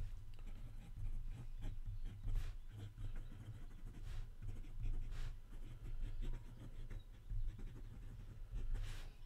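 Pen writing on a paper worksheet: irregular short scratching strokes as a line of words is written out, over a low steady hum.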